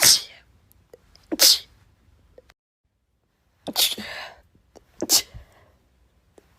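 A person sneezing four times: two sharp sneezes about a second and a half apart, then after a short gap two more.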